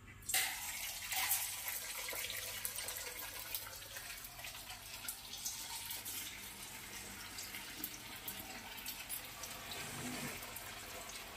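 Sabudana vadas deep-frying in hot oil in an iron kadhai: a sizzling hiss with many small crackles that starts suddenly just after the start, as the vadas go into the oil, and then carries on steadily.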